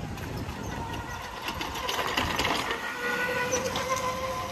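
Razor electric dirt quad's 24-volt motor and drivetrain whining as the quad drives past, the whine growing steadier and louder about halfway through, over a running rattle of small clicks.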